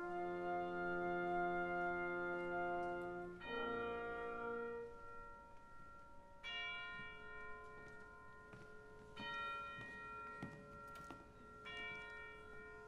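Opera orchestra holding soft sustained chords, with a deep church bell tolling a stroke roughly every two and a half seconds from about halfway in.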